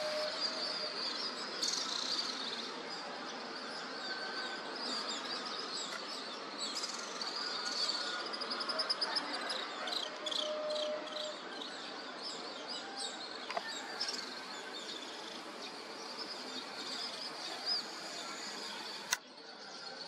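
Many small birds chirping and twittering in a morning chorus over steady background noise from the town, with a quick trill about eight seconds in. A sharp click comes near the end, and the sound briefly drops there.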